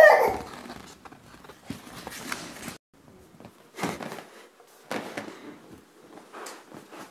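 A short voice-like sound right at the start, then a series of brief rustling, brushing handling noises as the bonded-leather children's recliner and its plastic wrapping are handled.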